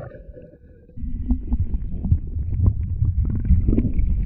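Muffled sound picked up by a camera held underwater: a low rumble of churning water, with many small crackles, that comes in loudly about a second in, and a faint steady whine above it.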